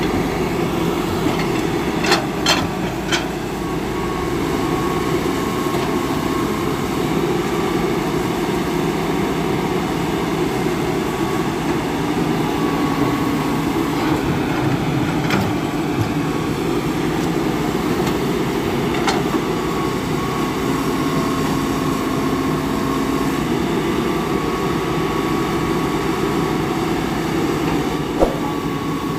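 Old Hitachi hydraulic crawler excavator working under load, its diesel engine running steadily while it digs and loads soil, with a thin whine that comes and goes. A few sharp knocks stand out: a cluster a couple of seconds in and single ones later.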